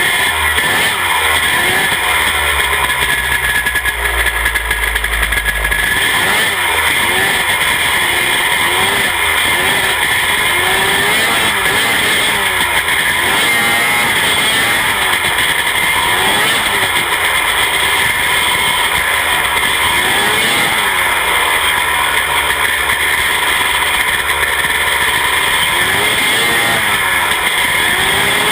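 Hurricane Midget race car engine running hard at racing speed, its pitch climbing and dropping again and again every few seconds.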